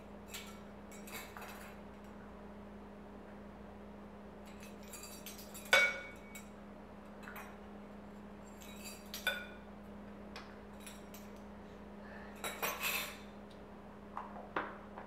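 Steel measuring spoons on a ring clinking against small metal cups and tins: a few scattered sharp clinks, with a quick cluster about twelve seconds in, over a steady low hum.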